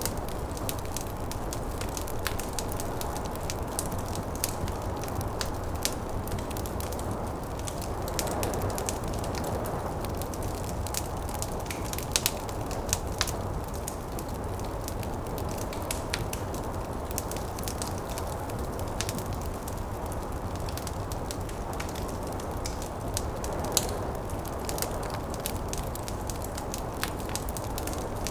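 Wood fire crackling with frequent sharp pops over a steady low rush of snowstorm wind, which swells twice.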